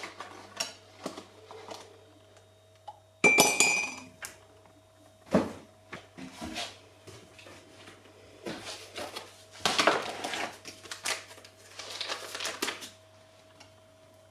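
Dishes and cutlery clinking: ceramic plates or mugs and a spoon knocked and set down in a string of short clinks, with one sharp ringing clink about three seconds in.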